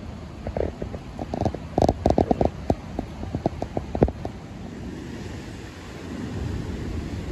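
Wind and rain on a phone microphone: a flurry of irregular taps and knocks through the first four seconds or so, then a steadier low rumble of wind buffeting the microphone.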